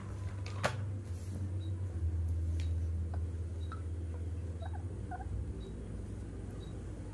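A few faint, short squeaks from a baby macaque, about halfway through, over a steady low rumble and a soft tick about once a second.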